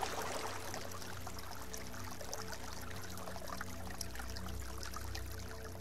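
Small stream trickling and splashing over rocks, a steady bubbling flow, with a faint low steady drone underneath.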